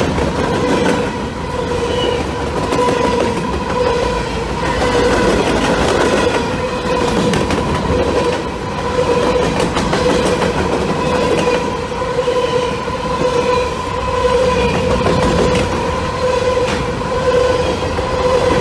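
Loaded freight train of covered hopper cars rolling past at close range, its wheels rumbling and clicking over the rails, with a steady whine running underneath.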